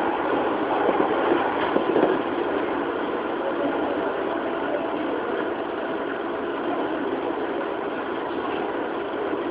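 Running sound inside a JR 205 series electric multiple unit motor car (MT61 traction motors) travelling at a steady speed, a constant rolling rumble and hum with no rise or fall in pitch. There are a few sharper clacks in the first two seconds.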